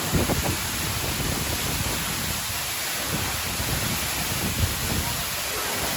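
Steady rushing noise of heavily falling water, even and without rhythm, starting abruptly at the beginning.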